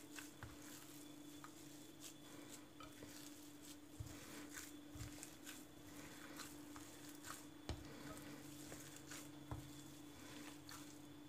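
Faint wet squishing and soft patting of a hand kneading minced meat with chopped tail fat for Adana kebab in a glass bowl, in scattered irregular strokes over a faint steady hum.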